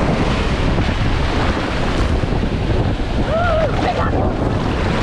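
Wind buffeting the microphone over rough surf breaking on the beach, with a short distant call a little past three seconds in.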